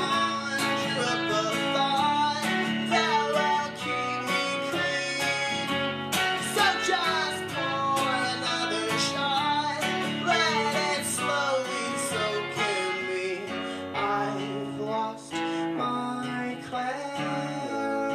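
Live guitar duo: an acoustic guitar strumming chords while an electric guitar plays a lead melody with sliding notes over it.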